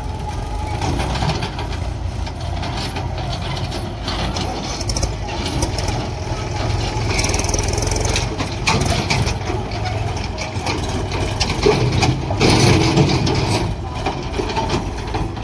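Diesel engine of a JCB 3DX backhoe loader running under working load while it digs and loads mud. There are louder rattling stretches about halfway through and again near the end.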